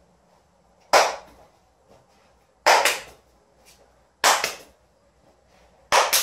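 Hand clapping: two sharp claps in quick succession, repeated four times about every second and a half, while a tossed hoop is in the air.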